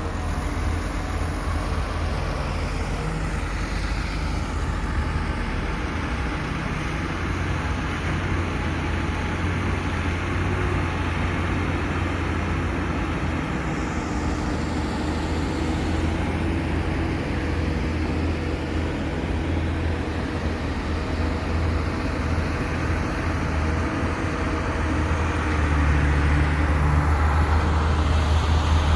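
Komatsu PC450-8 hydraulic excavator's diesel engine running, a steady low drone that grows louder near the end.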